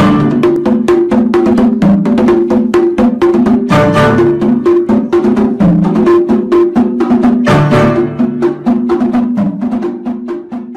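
Background music with a fast, even clicking beat, like a wood block, about seven strikes a second, over steady low notes; it fades out near the end.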